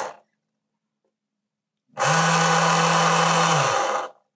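Torxis I00600 high-torque servo's heavily geared motor running. One move stops just after the start, and after a pause of nearly two seconds a second move runs about two seconds at a steady pitch and cuts off sharply.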